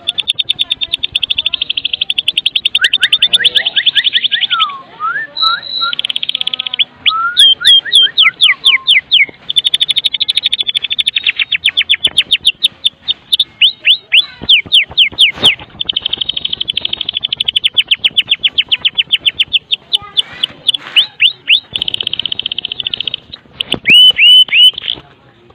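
White-rumped shama (murai batu) giving its rapid rattling 'kretekan' call in long high buzzy runs, alternating with quick series of sharp downward-sweeping notes and a few lower gliding whistles.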